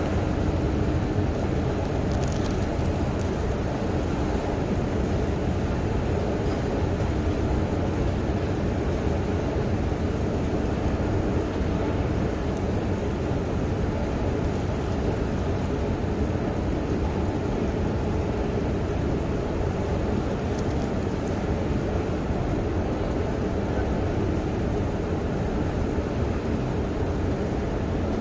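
Steady low mechanical rumble and hum of a long escalator running down into a deep underground railway station, even in level throughout.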